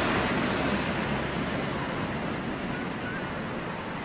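Boeing 777 airliner on landing approach, its jet engine noise a steady rushing hiss that fades gradually as it passes low overhead.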